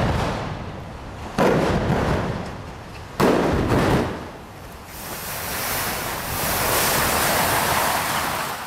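High-rise concrete tower block coming down in an explosive demolition: two sudden loud bangs about two seconds apart, each dying away in a rumble, then a sustained rumbling hiss of collapsing debris and dust.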